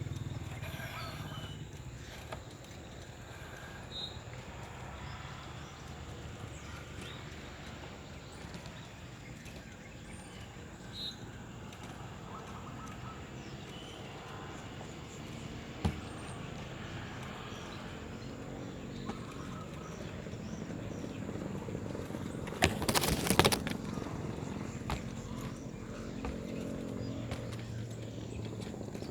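Zebra dove (merbuk) cooing faintly and intermittently over a steady low background rumble, with one brief loud clatter about three-quarters of the way through.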